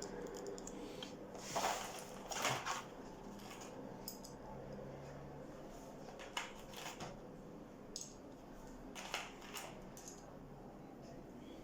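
Faint, scattered metallic clicks and scrapes from handling a refrigerator door hinge and its pin.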